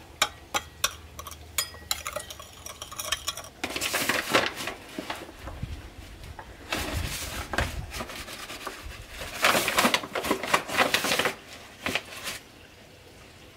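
A metal spoon stirring yeast and sugar in warm water in a ceramic bowl, tapping and clinking against the bowl in quick ticks. About three and a half seconds in, this gives way to a paper flour bag rustling and crinkling in several bursts as it is handled and opened.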